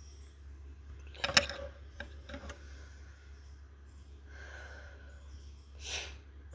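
A sharp click about a second in, then two lighter clicks, over a low steady hum, with a short soft rustle near the end.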